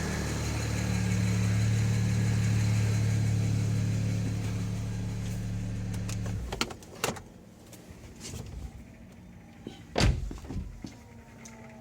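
BMW N54 twin-turbo straight-six running steadily, then shut off about six seconds in. A few sharp clunks and clicks follow.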